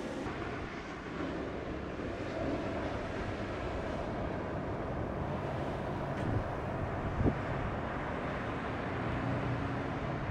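Strong offshore wind buffeting the microphone, a steady low rumble over the wash of breaking surf, with a short low thump a little past halfway.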